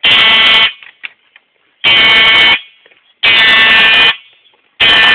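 Fire alarm horn sounding in short, loud blasts, each just under a second long: three in a row and a fourth starting near the end, with silence between.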